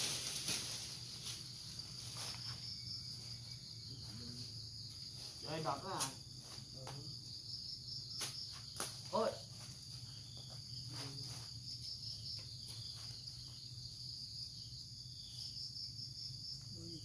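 Insects chirring steadily at a high pitch in a fast pulsing trill, with a few short knocks and brief vocal sounds around the middle.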